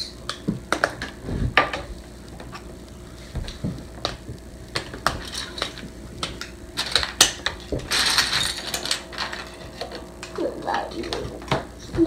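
Best-Lock plastic construction bricks clicking and clattering as pieces are handled, set down on the tabletop and pressed together, with a brief rustle about eight seconds in.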